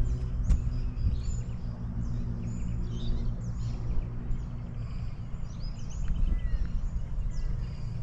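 Many small birds chirping and whistling in short calls throughout, over a constant low rumble on the microphone. A faint steady drone underneath fades out about halfway.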